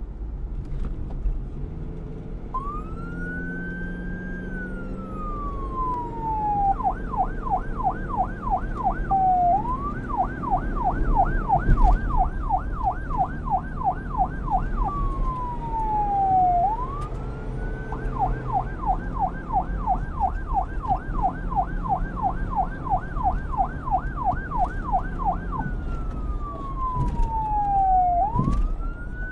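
Police car siren alternating between a slow wail, rising and then falling slowly, and a fast yelp of about four sweeps a second, over a low rumble.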